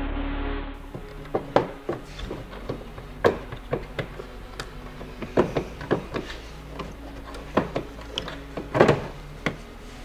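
Irregular sharp plastic clicks and knocks as a Dodge Charger's tail light is worked loose by hand and pulled off the body, with the loudest knock near the end. A short snatch of music cuts off within the first second.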